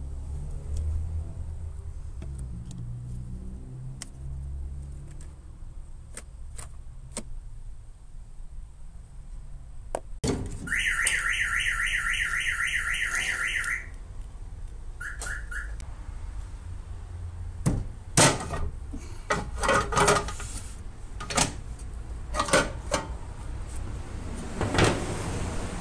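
Electronic beeper set off by a handheld remote fob, sounding in rapid pulses for about three seconds and then once more briefly. It is followed by a series of sharp metallic clanks on the aluminium checker-plate bed of the vehicle transporter.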